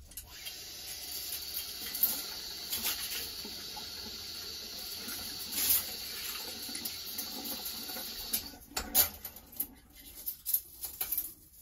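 Hot water running steadily from a sink tap over cleaned clock movement parts. The flow stops about eight and a half seconds in, and a few light knocks of the parts being handled follow.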